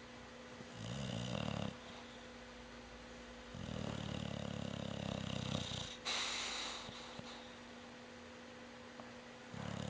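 A pet snoring in its sleep: a short snore about a second in, a longer snore of about two seconds in the middle followed by a breathy exhale, and another short snore near the end.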